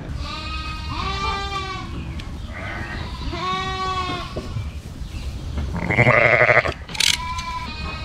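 Sheep bleating: several drawn-out, wavering calls, with a louder, lower call about six seconds in and a short scratchy rustle just after.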